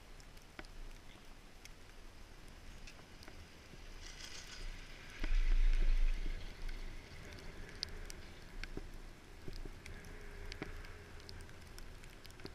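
Detachable chairlift with the chair passing over a tower: about four seconds in a hiss builds and then a low rumble swells for a second or two as the haul rope runs over the tower's sheaves. Light scattered clicks and creaks sound over a steady background hiss.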